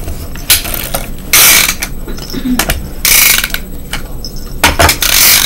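Plastic toy truck pushed back and forth across a wooden table, its wheels and mechanism sounding in four loud bursts, the longest about half a second.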